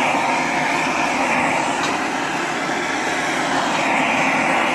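Handheld gas torch flame burning with a steady rushing hiss as it heats a ceramic melting dish, melting borax flux into a glaze.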